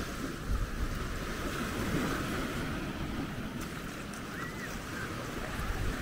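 Surf washing onto a beach, with wind buffeting the microphone. A short high chirp sounds about four and a half seconds in.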